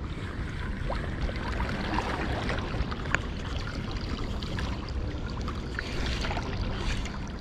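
Sea water lapping and sloshing among the breakwater rocks, with wind rumbling on the microphone and a few light clicks.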